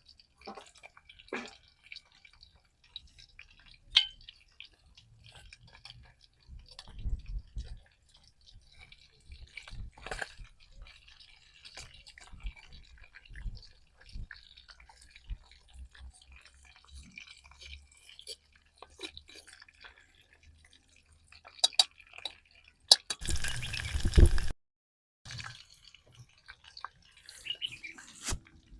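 Small wet clicks, taps and drips of food being handled and prepared. About 23 seconds in there is a loud rushing noise that lasts about a second and a half.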